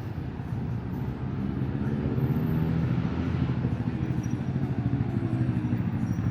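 A motor vehicle's engine passing close by on a city street over a steady traffic hum, growing louder about a second and a half in.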